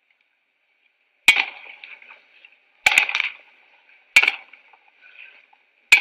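Tennis rally on an old film soundtrack: a ball struck by rackets, four sharp hits about a second and a half apart, each trailing off briefly.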